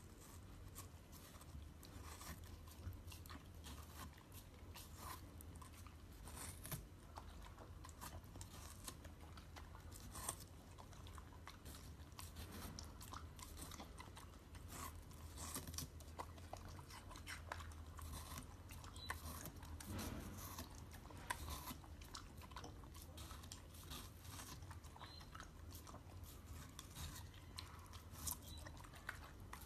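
A fluffy white dog biting and chewing a slice of watermelon: irregular wet crunches and clicks of the rind and flesh, over a faint steady low hum.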